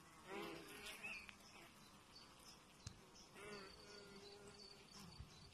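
Honeybees on the brood comb buzzing faintly, in short buzzes that come and go, with a longer buzz after about three and a half seconds.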